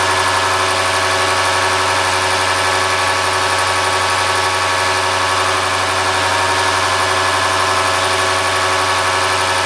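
Bosch diesel injection pump test bench driving a Bosch H-series eight-cylinder inline injection pump, running at a steady speed with a loud, unchanging mechanical drone.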